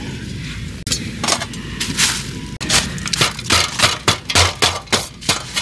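Camp gear being handled and packed away: a quick, irregular run of hard clinks, knocks and rattles begins about a second in and grows denser toward the end.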